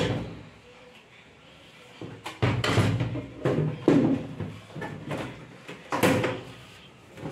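Plastic outer cover of a Whirlpool RO water purifier being handled and pushed into place: a sharp click at the start, then from about two seconds in a run of clunks and knocks as the panel is pressed and seated.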